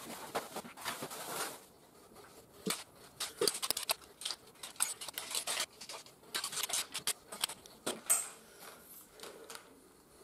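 Jointed metal pole legs of a lightweight folding camping cot clicking and clattering as their sections are pulled apart and folded by hand. The fabric rustles for about the first second and a half, and a run of sharp clicks follows, the loudest about eight seconds in.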